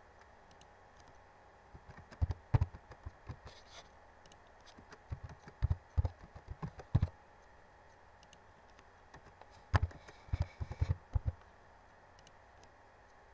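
Typing on a computer keyboard in three short bursts of keystrokes with pauses between them, as words are entered one after another.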